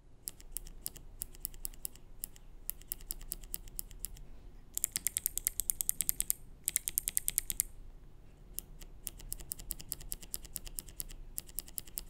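Rapid clicking of two low-profile clicky key switches pressed in a switch tester. The Keychron K1's blue low-profile switch gives a quiet, dull click from its small metal click piece. A Kailh Choc White, with its click bar, gives louder, sharper clicks in two runs about five seconds in.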